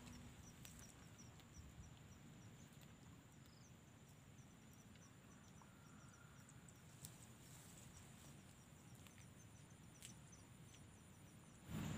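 Near silence: faint outdoor ambience with a steady train of quick, high chirps, like an insect calling.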